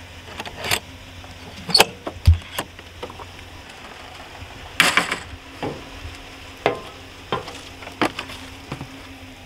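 Scattered clicks, knocks and thuds of gear being handled and set down, with a dull low thump about two seconds in and a sharper clatter about five seconds in.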